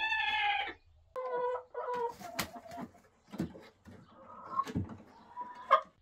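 Domestic hens clucking and calling: a loud drawn-out call at the start, then shorter clucks. Several sharp knocks are scattered through, the loudest one near the end.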